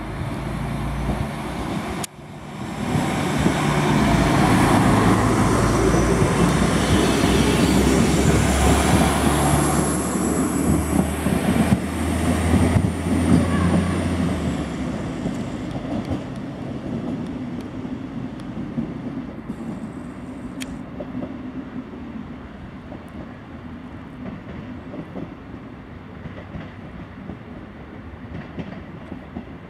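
SA134 diesel railbus pulling out and accelerating past, its diesel engine running loud under a high whine, then fading as it draws away. Its wheels clatter over the rail joints, with a few brief high squeals on the points in the second half.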